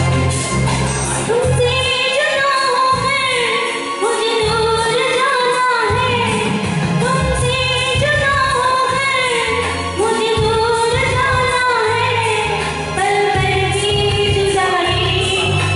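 A woman singing into a microphone over amplified backing music with a steady low beat.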